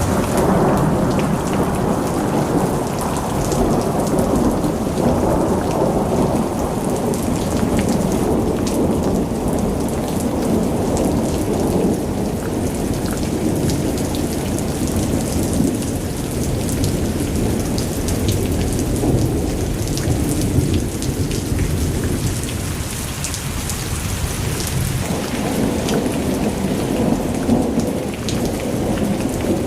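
Thunderstorm: steady heavy rain over a deep rumble of thunder, easing slightly about three-quarters of the way through.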